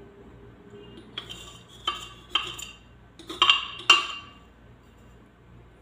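A spoon clinking against a container about five times over three seconds, each clink sharp with a short ring.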